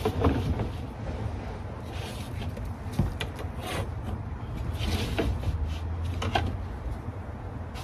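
Scattered light knocks, clicks and scrapes from handling tools and drywall while a cut is measured and marked, over a steady low hum.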